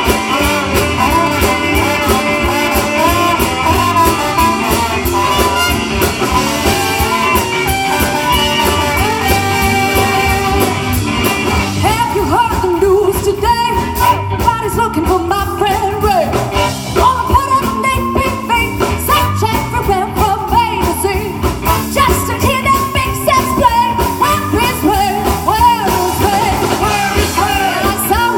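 Live swing-soul band playing an up-tempo number: trumpet, trombone and saxophone over electric guitar, bass and drums. A woman's lead vocal comes in about halfway through.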